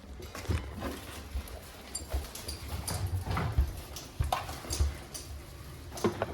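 Irregular light knocks, clicks and taps with a few low thumps, like hard parts being handled.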